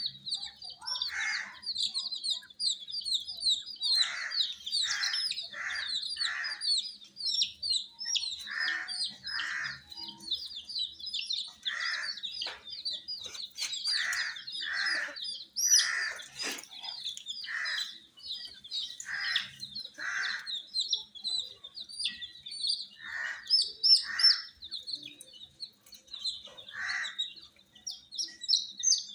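A brood of baby chicks peeping nonstop: a dense stream of short, high chirps from many birds at once, with louder, lower calls every second or two.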